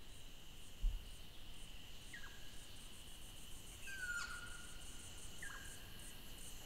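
Faint bush ambience: a steady high insect drone with regular cricket-like chirping, and a bird giving three short whistled calls that drop in pitch.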